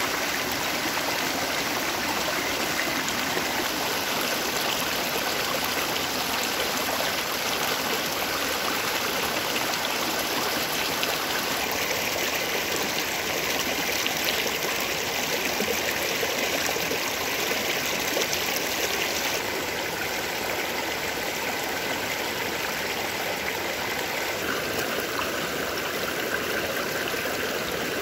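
Shallow mountain stream running over stones and pebbles, a steady rushing babble of water; it changes a little about twelve seconds in and turns slightly quieter about two-thirds of the way through.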